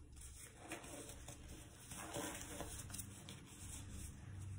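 Faint rustling and rubbing of gloves being pulled onto the hands, with a low steady hum underneath.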